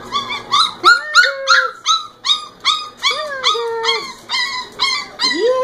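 Puppies whining and yelping: a quick series of short, high cries, about three a second, with a few longer, lower whines that rise and then hold.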